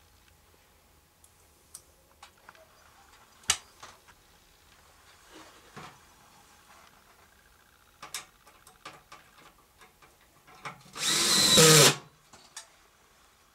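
Cordless drill driving a screw through a metal heat-transfer plate into the subfloor, one whirring burst of about a second near the end. Before it come scattered clicks and taps.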